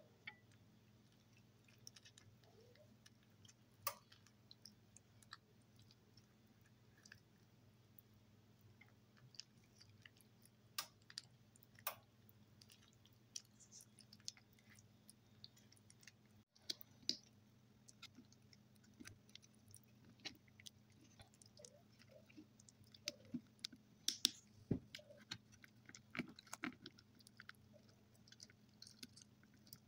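Faint, scattered clicks and soft wet squishes of fingers prying raw lobster tail meat loose from its shell, coming more often in the second half, over a low steady hum.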